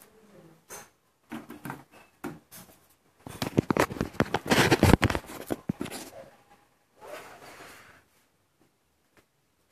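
Handling noise: light clicks and scraping as a mouse trap is handled on a galvanised metal box, then a few seconds of loud rustling and rubbing about three seconds in as the phone is swung around, and a softer rustle near the end.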